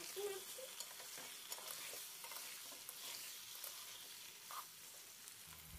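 Potato chunks and sliced onion being stirred in hot oil in a kadai with a slotted spatula: faint scraping of the spatula on the pan over a soft sizzle.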